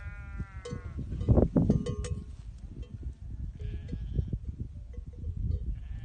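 A Karayaka sheep bleats once at the start, a long wavering call. Sheep bells clank now and then, and wind buffets the microphone with a low rumble, loudest in a gust about a second in.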